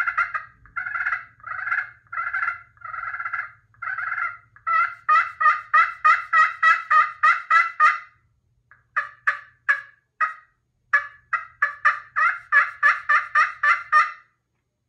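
Red Viper slate-over-glass pot call played on its slate side with a maple striker, making turkey yelps. It starts with about six slower, drawn-out notes, then runs into quick strings of sharp yelps, about three or four a second, with two short breaks.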